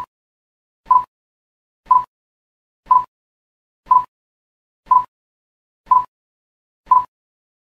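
Countdown-timer sound effect ticking down, one short, sharp tick each second, eight ticks in all.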